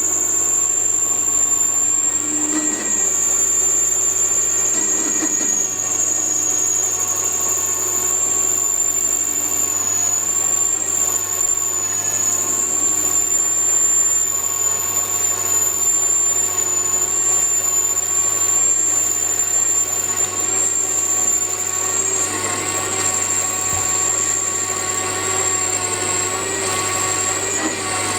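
High-speed grinder set up on a metal lathe, running steadily with a constant high-pitched whine over the hum of the machine.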